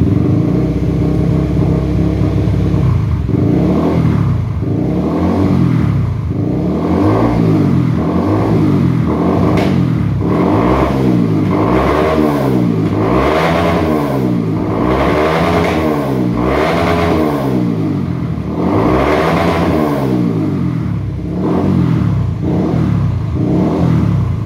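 Honda CBR150R's single-cylinder engine through a LeoVince aftermarket exhaust with the dB killer fitted, idling and then blipped over and over, the pitch rising and falling with each throttle blip, before settling back to idle near the end.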